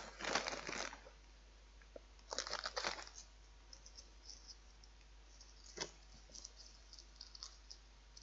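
Short bursts of dry crinkling and crunching, three of them in the first six seconds, then faint light clicks and crackles. This is the sound of handling puffed potato snack pieces and their thin plastic packet.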